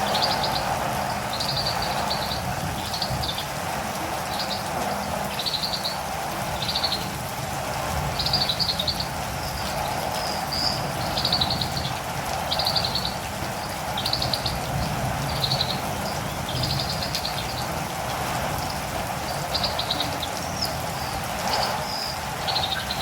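A catirumbava (olive-green tanager) calling in short, high, buzzy chirps about once a second, over steady rain.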